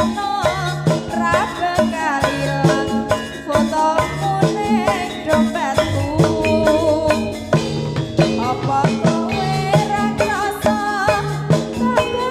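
Jaranan accompaniment music: drums keeping a steady, repeating beat under a wavering, ornamented melody line, played loud.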